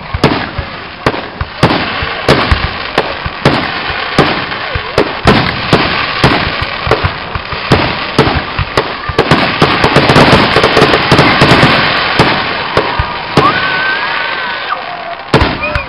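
Aerial fireworks launching and bursting: a rapid run of sharp bangs with crackling, densest around the middle.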